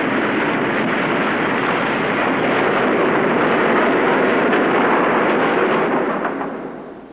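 A loud, steady rushing roar of wind that fades away near the end.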